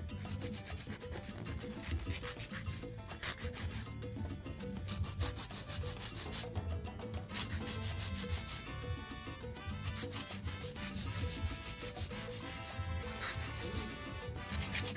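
Hand nail file rasping back and forth over a gel nail extension in rapid, even strokes, shaping the artificial nail.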